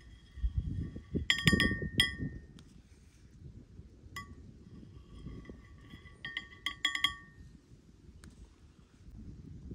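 Kitchenware clinking: quick runs of ringing clinks, as of a utensil striking dishes or a pot, twice, with single clinks between, over low handling noise.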